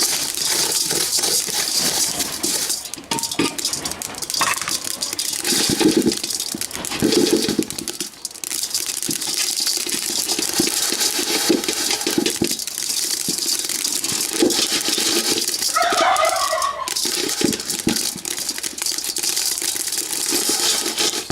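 Unhusked rice grains rattling and scraping in a hot, dry pan as the pan is kept moving, with many sharp little clicks as the grains pop open, over a steady hiss.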